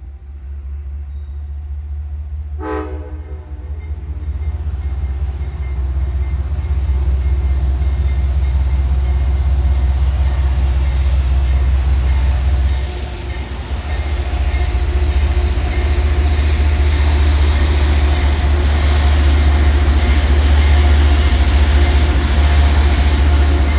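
GE P32AC-DM diesel locomotive running past with a steady, deep engine rumble and hum that grows louder as it comes closer. A short horn toot sounds about three seconds in.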